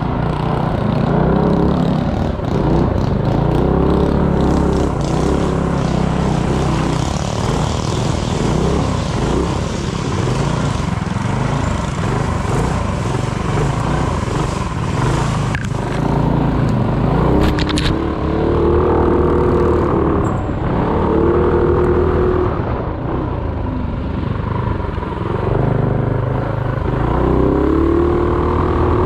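Coleman minibike's small engine running under race load, its pitch climbing and dropping again and again as the throttle is worked, over a steady rushing noise. A short cluster of sharp clicks comes about two-thirds of the way through.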